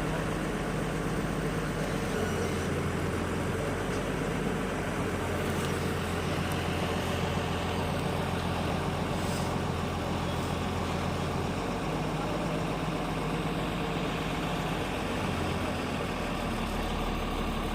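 Heavy diesel engine running steadily, its low hum shifting in pitch about two seconds in and again about twelve seconds in, as machine load changes.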